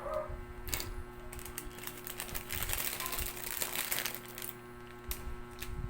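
Small plastic items and packaging being handled: irregular sharp clicks and crinkling, thickest in the middle, over a steady electrical hum.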